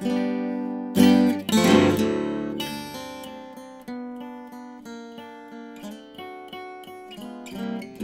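Kay 5113 steel-string acoustic guitar played solo. It starts with single picked notes, has two loud strummed chords about a second in, then goes on with picked notes that are left to ring and fade. A new chord comes at the very end.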